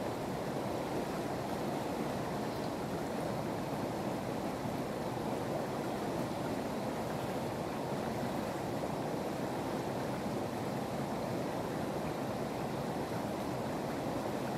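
Shallow river water running over a rock bed: a steady rush of flowing water with no breaks.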